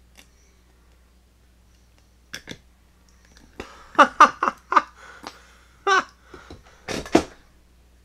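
An old rusty Southern Pacific railroad padlock and its attached chain being handled: a run of sharp metal clanks and chain links clinking with a short ring, starting about two seconds in and stopping shortly before the end.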